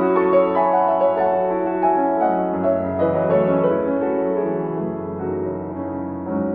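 Background music: a slow, gentle piano piece with sustained notes.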